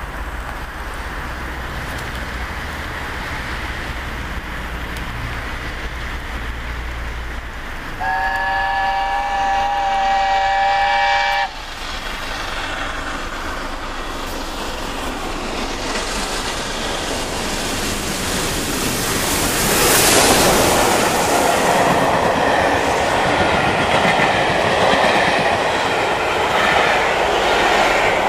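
Steam locomotive approaching with a low rumble, then sounding one long whistle of several steady tones for about three seconds that cuts off sharply. The train then rushes through at speed: the locomotive passes loudest about two-thirds of the way in, followed by the coaches' wheels clattering over the rail joints.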